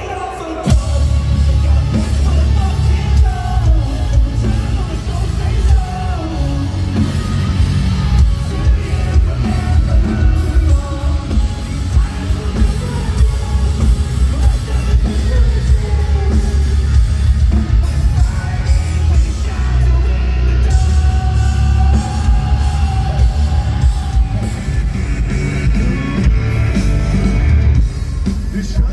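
Live rock band playing loud, with singing and drums over a heavy, booming bass.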